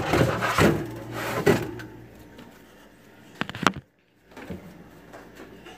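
Clatter and handling noise of things being moved around inside a refrigerator, on its wire shelf, then a few sharp knocks about three and a half seconds in. The sound cuts out completely for a moment just before four seconds.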